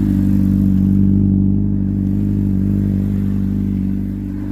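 Honda CBR600RR's inline-four engine running steadily as the bike rolls along, its note holding at one pitch.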